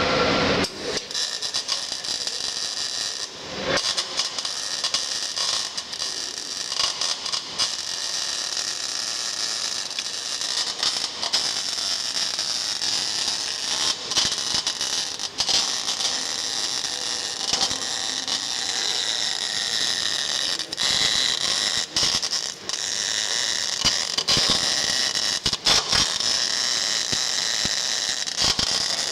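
MIG (GMAW) welding arc with CO2 shielding gas and 1.2 mm ER70S-6 wire at about 20 volts and 145 amps, running as a steady, dense crackle. The arc breaks off briefly about three and a half seconds in and then carries on.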